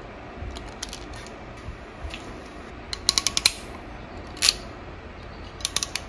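Hand tools stripping a wire and crimping a spade connector onto it: sharp metal clicks of the stripper and crimper jaws. There is a quick run of about six clicks a few seconds in, a single click about halfway, and another quick run near the end.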